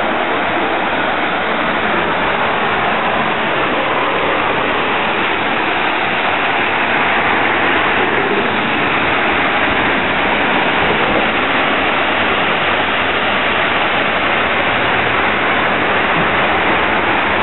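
River water rushing over a low stepped weir: a steady, even rushing noise.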